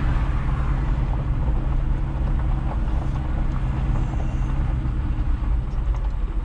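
A motor vehicle running with a steady low rumble.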